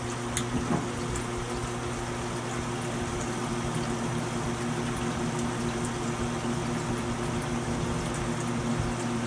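K40 laser's stock exhaust fan running steadily, a constant hum with air rushing through the ducting. A couple of faint clicks about half a second in.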